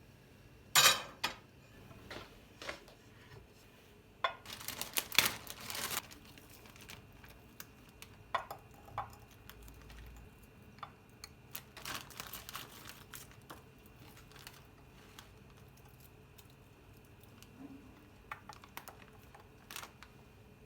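Kitchen handling sounds: a sharp knock about a second in, a rustling clatter lasting about two seconds from about four seconds in, then scattered light clicks and knocks of utensils and dishware.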